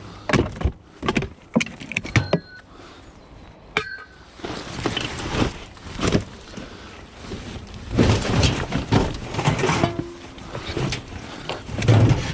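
Scrap metal being handled: sharp metallic clanks and clinks with short ringing tones over the first few seconds, then scraping and rattling as pieces are dragged and moved, with more knocks.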